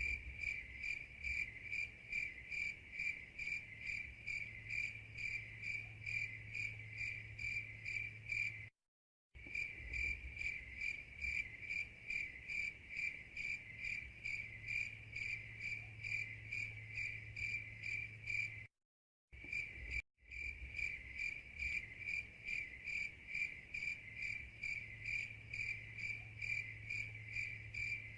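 Crickets chirping in a steady, even rhythm of about three high-pitched chirps a second. The sound cuts out for a moment about nine seconds in and twice more near twenty seconds, like seams in a loop.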